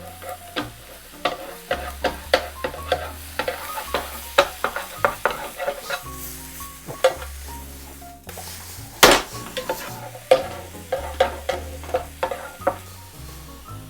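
Egg for a rolled omelette sizzling in a frying pan while a utensil clicks and scrapes against the pan again and again, with one loud knock about nine seconds in. Background music plays throughout.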